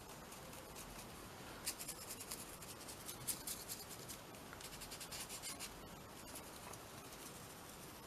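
A water brush scrubbing across textured paper, blending water-soluble crayon, in faint scratchy strokes. There are two runs of strokes, about two seconds in and about five seconds in.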